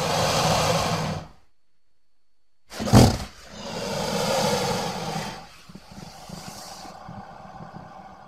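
Crocodile calling: a harsh call that breaks off about a second and a half in, then, after a short gap, a sudden loud blast, a longer call, and a quieter call that fades away near the end.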